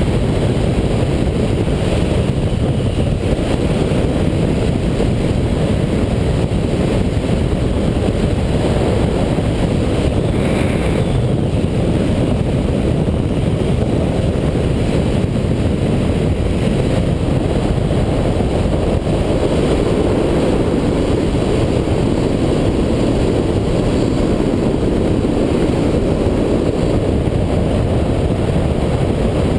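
Yamaha FZ1 motorcycle at cruising speed: a steady, loud, low rush of wind over the microphone, with the engine running underneath.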